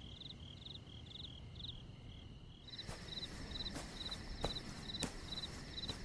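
Faint crickets chirping in short high chirps about twice a second over a thin steady trill. A few light ticks come in the second half.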